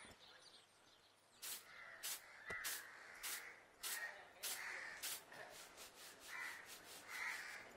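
Faint outdoor ambience with scattered short bird calls every second or so.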